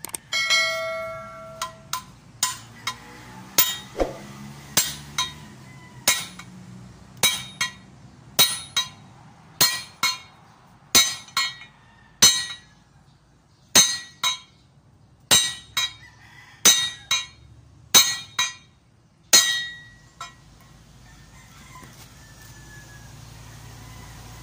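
A hammer tapping a greased king pin down into an Isuzu Elf truck's steering knuckle: about thirty sharp metal-on-metal strikes, each with a short ring, coming one or two a second and stopping about twenty seconds in.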